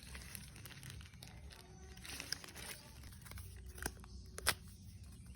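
Smartphone packaging being handled and opened, rustling and crinkling, with two sharp clicks about four and four and a half seconds in.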